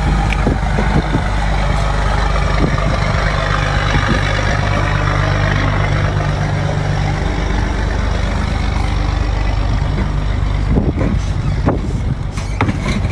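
A boat engine idling steadily with a low hum. Near the end come a few sharp cracks as lobster shell is pulled apart.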